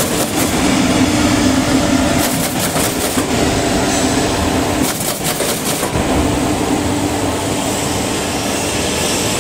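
Automatic corrugated cardboard partition assembly machine running: a steady mechanical clatter with a hum underneath, and two roughly second-long bursts of hissing rattle about two and five seconds in.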